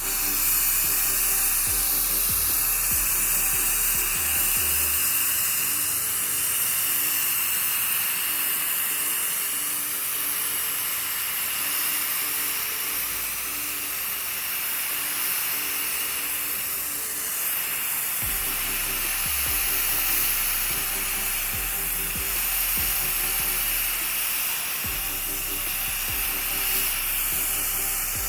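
Electric paint sprayer running steadily, its motor whining under a continuous hiss as it sprays water-based primer onto furniture.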